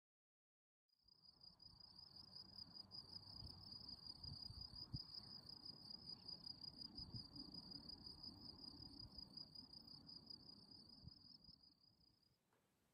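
Faint high-pitched cricket trill, steady and rapidly pulsing, starting about a second in and stopping near the end, over a faint low rumble.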